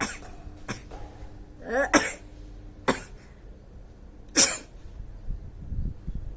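A woman sneezing several times in a row, sneezes set off by a sutra neti thread pushed into the nostril: short, sharp bursts, one with a rising voiced intake before it about two seconds in, and the loudest about four seconds in.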